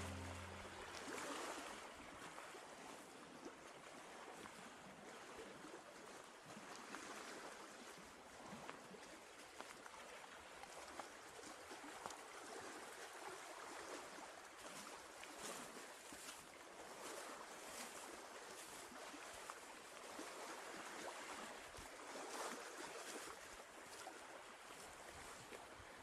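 Faint lakeshore ambience: small waves lapping at the shore over a soft, steady hiss.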